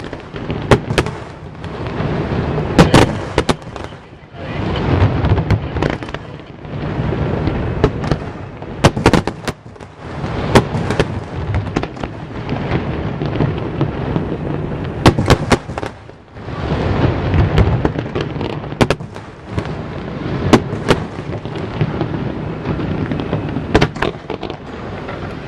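Aerial fireworks bursting: a run of sharp bangs every second or two, over stretches of rumbling, crackling noise between them.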